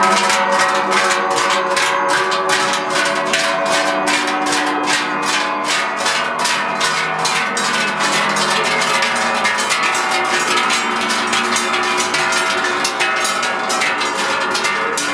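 A group of large metal cowbells (toupins) swung together by walking bell-ringers: a dense, rhythmic clanging, each stroke leaving overlapping ringing tones.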